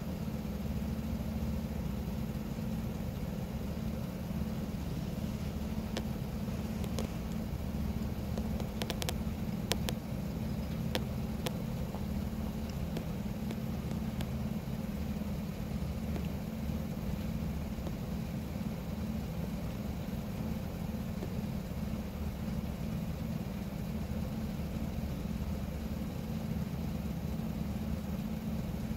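A vehicle engine idling steadily, with a few faint clicks about a third of the way through.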